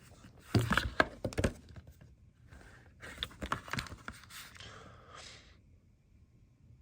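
Hands handling a smartwatch and its band: two runs of sharp clicks, knocks and scraping, then a softer rustle, as the band is worked onto the watch.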